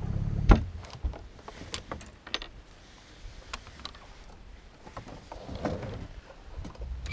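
An engine idling, cut off about half a second in by a sharp knock. Then scattered light knocks and clicks of gear being handled on a boat's deck as a landing net is pulled out.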